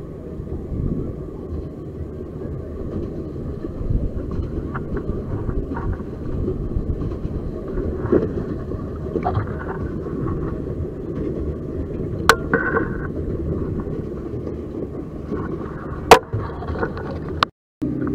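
Steady low rumbling noise of water and wind on the microphone, muffled as if heard through a waterproof camera case, with a few sharp knocks, the loudest about sixteen seconds in. The sound cuts out briefly near the end.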